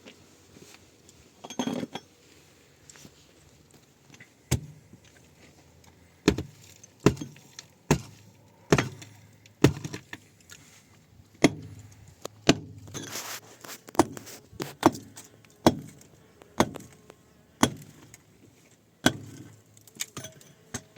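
A series of sharp knocks and clinks of hard objects, about one a second, some ringing briefly.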